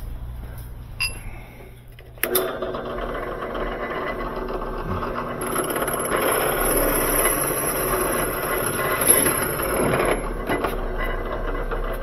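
Floor-standing drill press switched on about two seconds in and running steadily, its tapered bit cutting the seal profile inside a brass tube held up to it. A high metallic hiss rises over the middle of the run.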